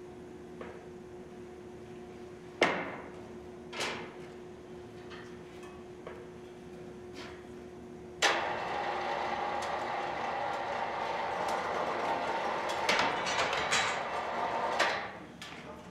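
Foundry equipment: two sharp metal clanks about a second apart over a faint steady hum, then a steady mechanical running noise that starts suddenly about eight seconds in and stops near the end.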